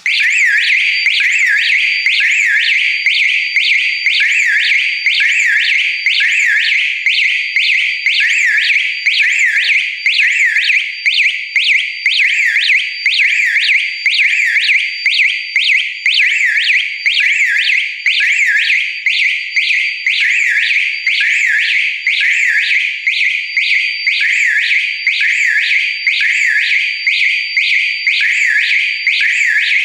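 Chinese fire alarm horns sounding in alarm after a manual pull station is pulled: a loud, high-pitched tone sweeping rapidly up and down over and over, with a thin steady whistle above it.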